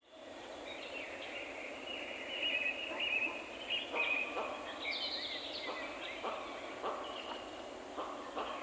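High, squeaky chirping calls from small animals over a steady autumn-forest background, with short rustles at a regular pace from about halfway through.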